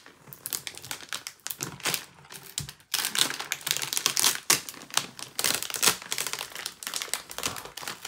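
Clear plastic transfer tape being peeled back off a vinyl decal on a plastic bucket, crackling in a rapid, irregular run of clicks that gets denser about three seconds in.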